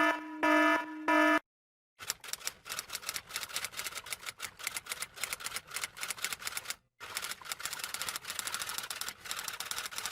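Three loud electronic beeps, then after a short pause a rapid run of typing clicks, many a second with one brief break midway, as in a typewriter sound effect.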